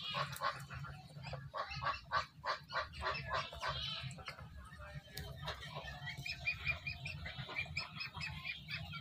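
Domestic ducks calling: a run of rapid, harsh calls in the first few seconds, then a string of short, higher repeated notes near the end, over a steady low hum.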